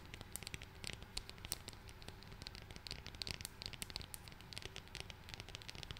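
Fingernails tapping and scratching on a round plastic makeup compact held close to the microphone: many quick, irregular light clicks.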